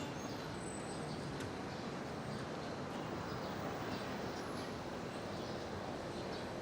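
Steady, even hum of congested city street traffic.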